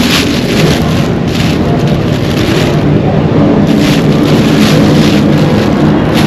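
Paper takeout bag rustling and crinkling in irregular spells as it is opened and searched, over a steady low rumble.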